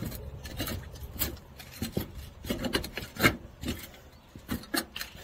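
Shoes scuffing and grating on roof tiles in irregular steps, about two gritty scrapes a second.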